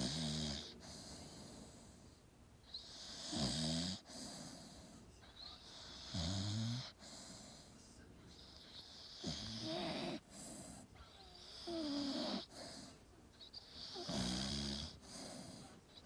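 A Staffordshire bull terrier snoring in deep sleep: six snores, about one every two and a half to three seconds, each a low snore with a hiss of breath.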